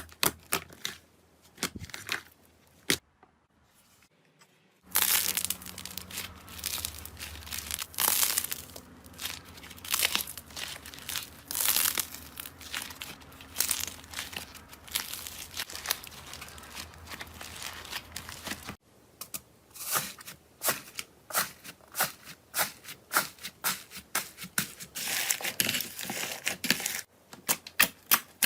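Slime being squeezed and worked by hand, giving a dense run of sticky crackling and popping clicks. The clicking stops for a near-silent pause about three seconds in, then resumes, with the background changing abruptly at cuts about five and nineteen seconds in.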